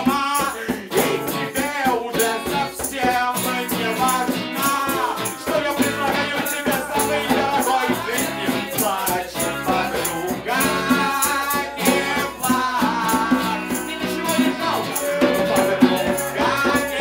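Live acoustic music: a strummed acoustic guitar and a man's voice through a handheld microphone, over a steady, crisp rattling beat.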